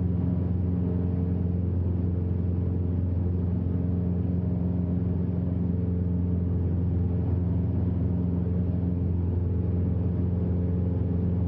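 Aircraft engine droning steadily, a low hum with a few higher overtones that holds one unchanging pitch.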